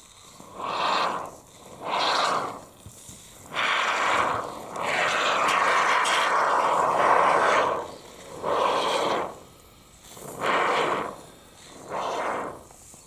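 Can of expanding spray foam hissing as it is sprayed into a drywall hole, in short bursts of about a second each with one long spray of about three seconds near the middle.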